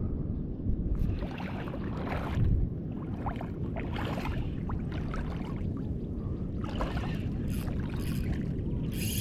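Wind buffeting the microphone over the wash of surf on a beach, with irregular hissing swells as waves run in.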